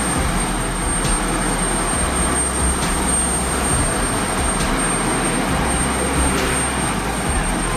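Jet airliner engine noise: a steady, loud rush that holds without rising or falling.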